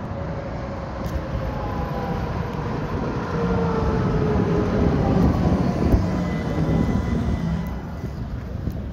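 Tatra T3 tram rolling in and braking to a stop: wheels rumbling on the rails under a whine that falls in pitch as it slows. The sound is loudest as it passes close, about six seconds in, with a single clunk, then eases as it comes to rest.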